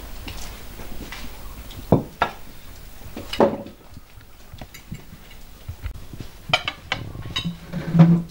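Dishes and cutlery clinking and knocking in a few separate sharp strikes, with a short low hum-like sound near the end, the loudest moment.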